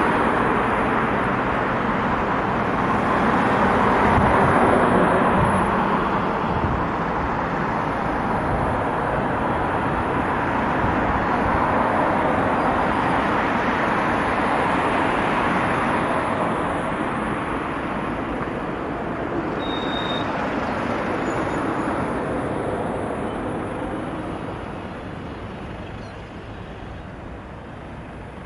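Road traffic: cars and vans passing close by, their tyre and engine noise swelling and easing as each goes by, then thinning out gradually toward the end.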